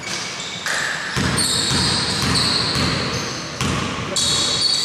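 Basketball bouncing on a hardwood gym floor, a few separate thuds that echo in the hall, with high squeaks ringing over them.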